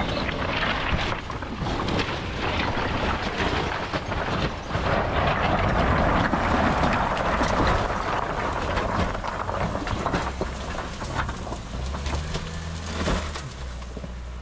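Land Rover Discovery driving over a pile of loose rock, its engine running while stones crunch, clatter and shift under the tyres. The rock noise eases off near the end, leaving the engine's low hum.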